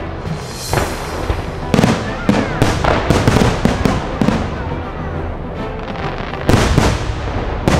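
Fireworks bursting in quick succession, a dense run of sharp bangs with a thicker flurry from about two seconds in and another near the end, over background music.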